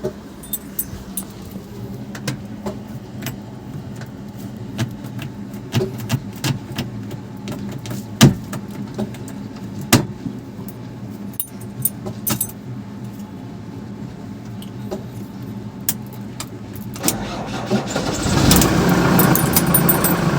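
JCB 3DX backhoe loader's diesel engine running steadily, with many sharp clinks and knocks scattered through, the loudest two about eight and ten seconds in. Near the end the engine revs up and gets much louder.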